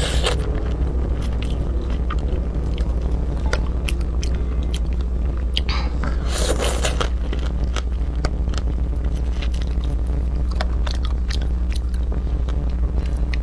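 Close-miked biting and chewing of small crabs in spicy chili sauce: the shells crunch and crack in many short, sharp snaps, with a denser stretch of crunching about six seconds in. A steady low hum runs underneath.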